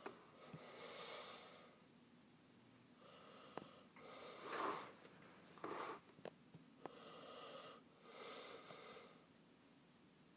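Faint breathing close to the microphone, several soft breaths in and out, with a few small clicks in between.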